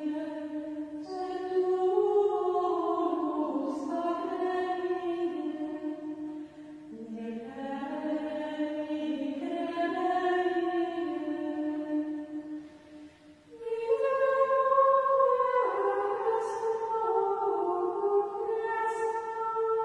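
Benedictine nuns' choir singing Gregorian chant in unison in Latin: one flowing melodic line in held, stepwise notes, with a short breath pause about two-thirds of the way through.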